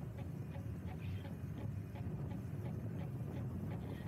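Riding on a Spark Cycleworks Bandit Adventure e-moped: a steady low rumble of wind and tyre noise, with a regular light ticking about three or four times a second.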